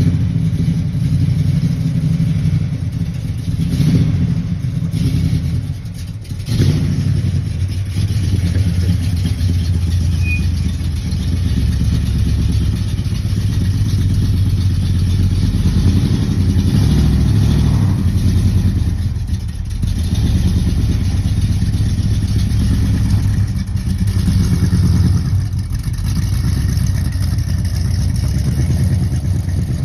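Buick GS engine running steadily as the car drives slowly through snow, the engine note shifting slightly up and down.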